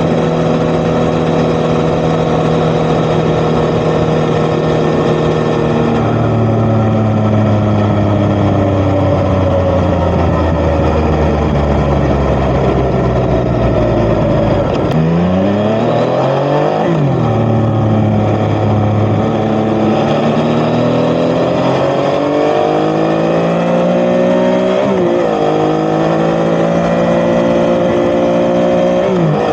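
Yamaha XSR900's three-cylinder engine through an Akrapovic titanium exhaust while riding. The engine holds a steady note at first. Around halfway the revs fall and pick up again, then climb under acceleration, with quick dips at gear changes near the end.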